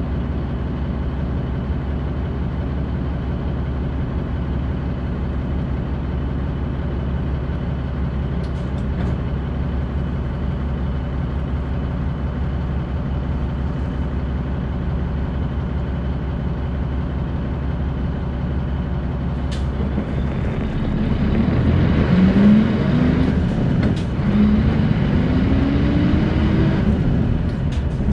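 Mitsubishi Fuso Aerostar city bus's diesel engine idling steadily, heard from inside the bus. About twenty seconds in the bus pulls away and the engine note grows louder and rises twice as it accelerates through the gears.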